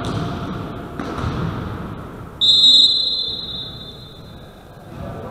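A referee's whistle in a sports hall: one long blast about halfway through, starting suddenly and fading away over a couple of seconds. Before it there is general hall noise, with a knock about a second in.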